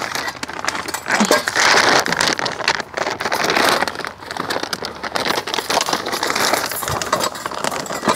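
Close-up crinkling and rustling of food wrapping being handled, with many small crackling clicks.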